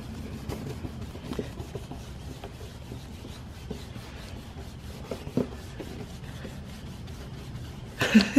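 Damp paper towel rubbing and scrubbing over a plastic headlight lens, a soft, uneven wiping noise with small ticks as the towel drags. A short louder sound cuts in near the end.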